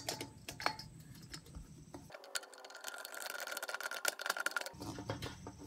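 Hand driver with a socket bit turning the bolts of a smoker lid's handle: a few scattered clicks and taps, then a dense run of rapid clicking for about two and a half seconds in the middle as the bolt is driven.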